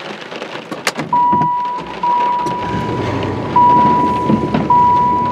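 Dodge Ram pickup started with the key: a click, then the engine cranks and catches about two seconds in and settles into a low idle. A dashboard warning chime sounds over it, a clear tone that restarts about every second.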